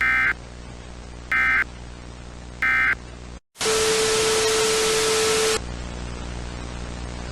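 Three short buzzy EAS data bursts about a second and a quarter apart, the end-of-message code that closes an alert. After a brief dropout comes a loud two-second burst of static with a steady low tone under it, then quieter steady static and hum.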